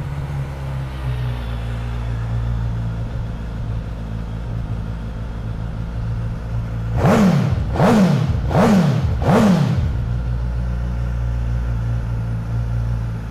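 2020 Suzuki GSX-S1000's 999 cc inline-four engine idling just after starting, then, about seven seconds in, four quick throttle blips in a row, each rev rising sharply and dropping back, before it returns to a steady idle.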